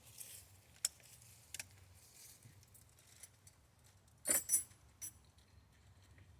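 A few light clicks, then a short jangle of small metal objects about four seconds in, like keys or small hardware being handled.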